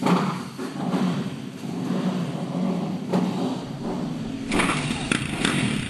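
Motorbike engine running, starting abruptly and carrying on steadily, with a brighter, louder stretch from about four and a half seconds in.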